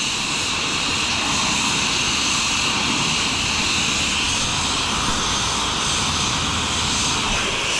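Gas torch flame burning with a steady roar, heating a pressurised two-stroke expansion chamber so that the dent pushes out.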